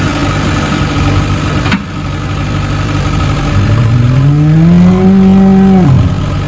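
A cow moos once: a long call that rises in pitch, holds, then drops away about six seconds in. Under it a tractor engine idles steadily.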